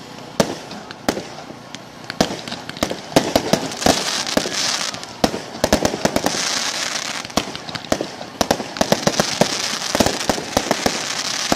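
Aerial fireworks going off: a rapid, irregular series of sharp bangs from shell bursts, with stretches of hissing crackle from the burning stars. The bangs come thickest in the second half.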